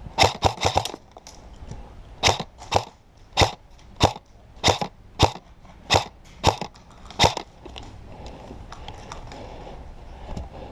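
Airsoft gun firing: a quick string of about four shots near the start, then single shots every half second to a second, about nine more, stopping around seven seconds in.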